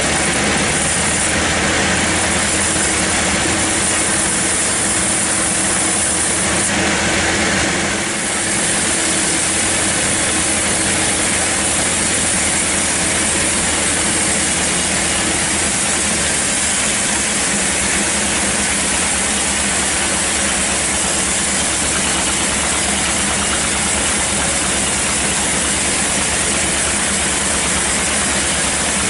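Engine-driven band sawmill running steadily, a loud mechanical drone with a broad hiss of the blade and machinery over it.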